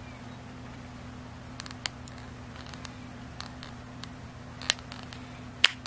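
Light clicks and taps of fingers handling an opened action camera's plastic body and lens, with two sharper clicks in the second half, over a steady low hum.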